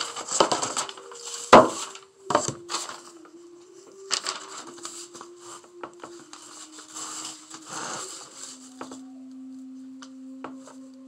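Hands swishing loose sand across a sand-painting board and shifting a sheet of paper, in several spells, with one sharp knock against the board about one and a half seconds in. Soft sustained tones play underneath.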